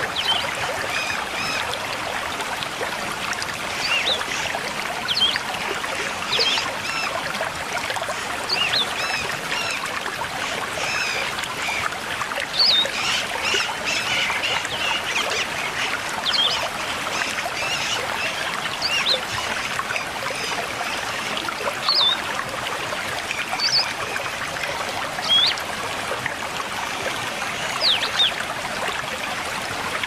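Running water with many wild birds calling over it: short, sharp whistled notes, some sliding up and some down, every second or two.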